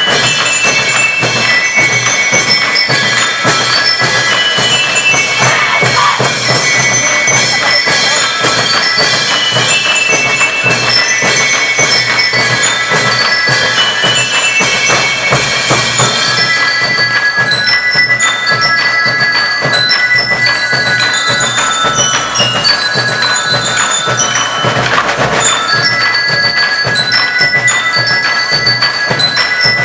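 School rhythm band playing: bell lyres and xylophones ringing out a quick melody in running lines of high notes over a steady beat of snare and bass drums.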